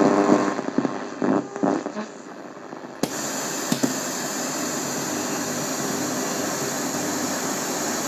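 Hitachi TRK-8240RM boombox radio being tuned between stations: a broadcast fades out over the first two seconds, then about three seconds in a steady hiss of inter-station static starts abruptly and holds.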